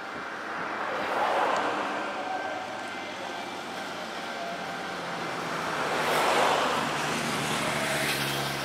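Road traffic passing: two vehicles go by, each swelling and fading, about a second in and again about six seconds in.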